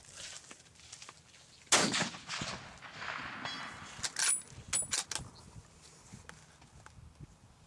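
A single .30-06 rifle shot from a Remington 770 bolt-action about two seconds in, echoing away over the next second or so. A couple of seconds later, a quick run of sharp metallic clicks as the bolt is worked to eject the spent case and chamber the next round.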